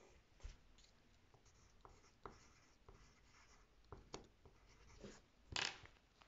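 Faint pencil strokes on paper: a scatter of short scratches and light taps, with one louder scrape about five and a half seconds in.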